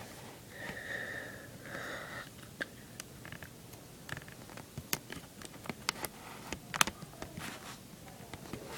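Light scattered clicks and taps of a Rubik's cube being handled while its stickers are peeled off and pressed on, with two short hissing sounds in the first two seconds.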